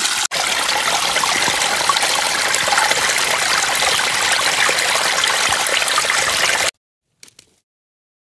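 Shallow spring water trickling over mossy rocks and into a collapsible water bag set in the flow, a steady close rush of water. It cuts off suddenly near the end.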